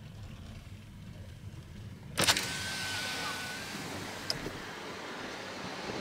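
Low rumble of a car, then about two seconds in a sudden loud rush of noise followed by a steady hiss of wind and outside air.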